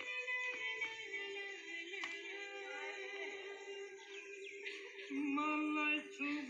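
Voices singing in long held notes, the pitch stepping down about five seconds in. A single sharp tap of a badminton racket hitting the shuttlecock comes about two seconds in.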